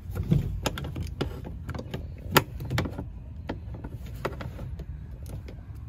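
Scattered clicks and knocks of hands and a tool working the plastic flange of a car's in-tank fuel module and its lines, with one sharp knock about two and a half seconds in, over a steady low hum.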